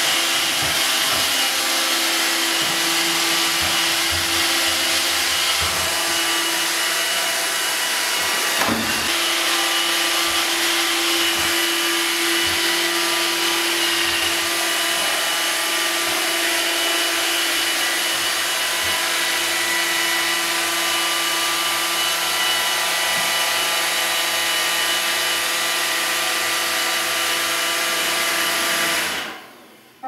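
iRobot Roomba 650 robot vacuum cleaner running on a tiled floor: the steady whirr and whine of its vacuum motor and brushes, with a single knock about nine seconds in. The sound cuts off near the end.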